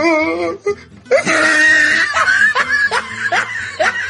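Laughter from a comedy meme soundtrack. A voice holds a wavering note for about half a second, then breaks into a long run of rapid, rhythmic laughs over music.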